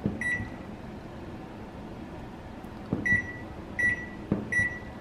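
GE microwave's control panel beeping as buttons on its newly replaced touchpad are pressed: a short single-pitch beep just after the start, then three more about 0.7 s apart near the end, each following a soft tap on the pad. The beeps show the new keypad registering each press.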